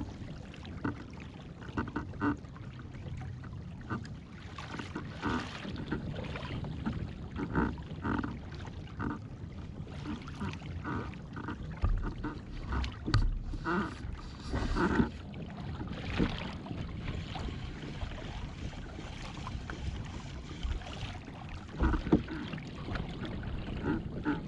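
Wind rushing over the microphone with choppy water splashing and slapping against a kayak's hull in many short bursts, and a few louder knocks.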